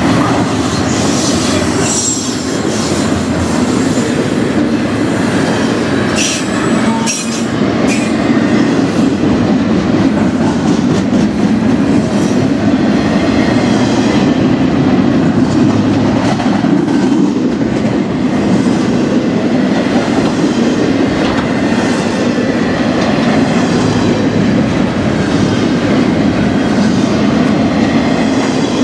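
Double-stack intermodal container train rolling past close by: a steady, loud rumble and clatter of steel wheels on the rails, with short high-pitched wheel squeals during the first several seconds.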